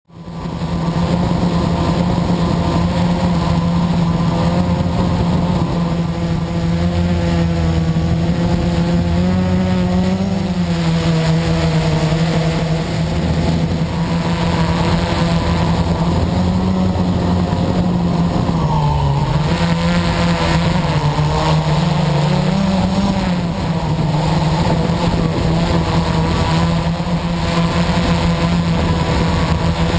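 Motor and propeller of a homemade radio-controlled 'flying box' aircraft, heard from a camera riding on it: a steady buzzing drone. Its pitch shifts with the throttle about ten seconds in and again between about eighteen and twenty-three seconds.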